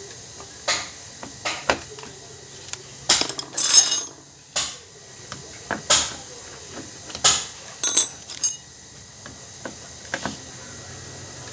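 Metal tools and parts clinking and knocking irregularly, about ten sharp strikes, a few of them ringing briefly, while working on a washing machine's gearbox.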